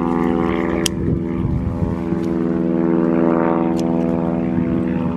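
Steady drone of an engine running at a constant pitch, with a sharp click about a second in.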